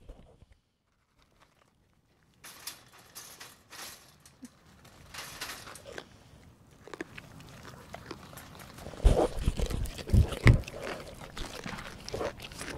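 Goats crunching and chewing pieces of pumpkin close to a handheld microphone. After about two seconds of near silence come scattered crisp crunches that grow louder, with a few heavy thumps around nine to ten seconds in.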